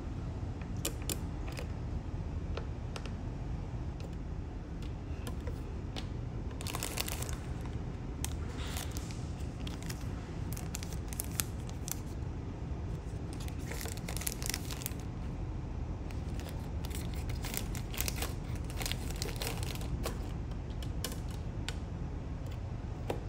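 Plastic-wrapped amenity sachets crinkling and rustling as they are picked through in a plastic amenity box, with light clicks of its hinged lid, over a steady low hum.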